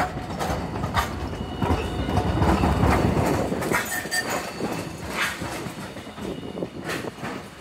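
Low-floor tram rolling slowly past at close range over curved track and pointwork. Its wheels rumble and clack as they cross rail joints and switch frogs, about one knock every second or so, with a faint wheel squeal in the second half.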